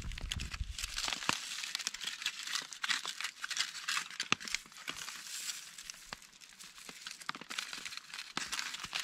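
Aluminium foil crinkling as it is unfolded and handled, a dense irregular crackle with many small clicks, busiest about three to five seconds in and quieter toward the end.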